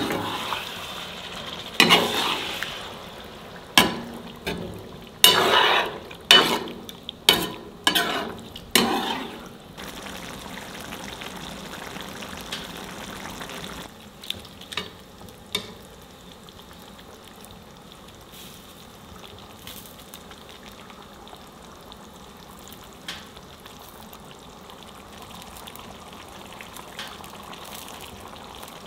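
Tomato sauce sizzling in a cast-iron pan while it is stirred with a metal spoon that scrapes and clinks against the pan. The sharp knocks come mostly in the first ten seconds, with a few more a little later; after that the pan keeps up a steady, quieter sizzle.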